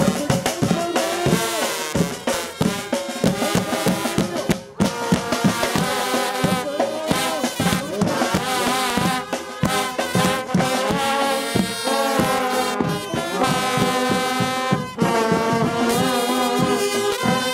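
Guggenmusik brass band playing while marching: trombones, trumpets, saxophones and tuba over a steady beat of bass drum and drums, with one brief break about five seconds in.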